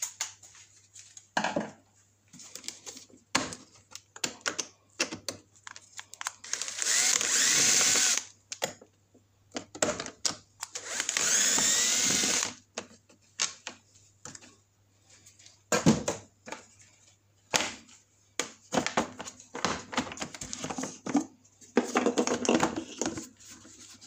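Scattered clicks and knocks of plastic engine covers being handled and pried loose on a Briggs & Stratton mower engine, with two loud whirring spells of about two seconds each from a small electric motor whose pitch wavers, like a power screwdriver.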